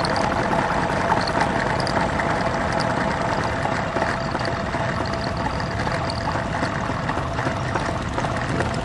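Cruiser motorcycle engines running at low speed in a slow-moving column of bikes: a steady, loud mix of several engines with no single rev standing out.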